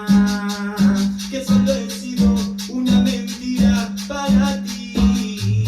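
Cumbia music with a steady beat: a bass note repeats about every 0.7 s under a quick shaker rhythm.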